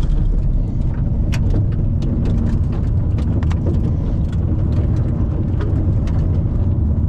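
Car driving on a dirt and gravel road, heard from inside the cabin: a steady low rumble of road noise with scattered sharp ticks throughout.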